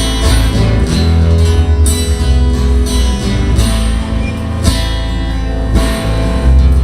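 Acoustic guitar strummed in an instrumental passage of a live song, with deep bass notes underneath.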